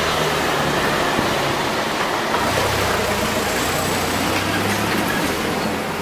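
Steady wind noise on the microphone over the low hum of road traffic.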